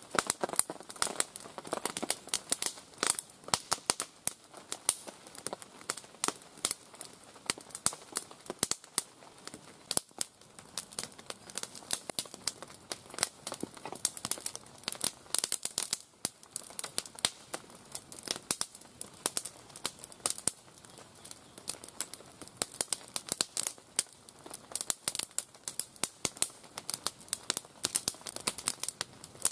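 Crisscross fire of dry split kindling and feather sticks crackling and snapping as it catches, many sharp pops in quick irregular succession.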